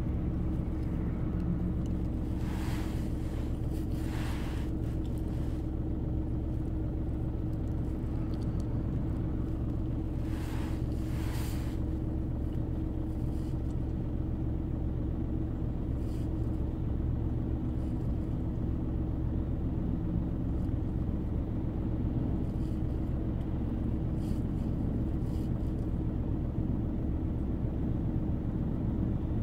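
Volkswagen car engine idling steadily, heard inside the cabin as a low, even hum. A brief hiss comes twice, about three and eleven seconds in.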